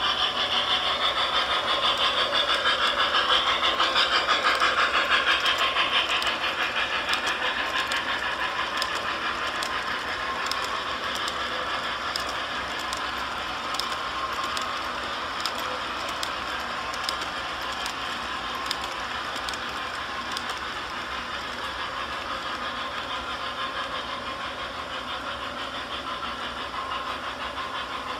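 Model train running on the layout: a model Y6b steam locomotive and its passenger cars roll past with a steady rattle of wheels and motor on the track, plus fine clicks over the rail joints. It is loudest in the first several seconds and slowly fades as the train moves away.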